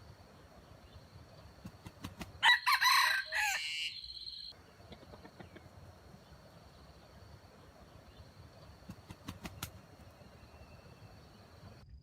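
A junglefowl rooster crows once, a single short crow about two and a half seconds in.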